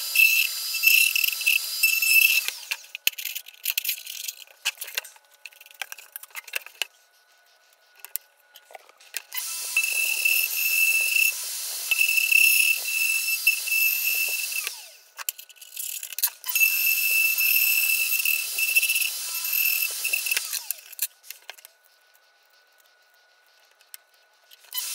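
Plunge router running in three spells with a high, steady whine, switched off between them so it winds down, with scattered clicks of handling in the pauses.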